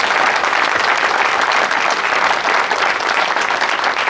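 A crowd applauding: many people clapping steadily.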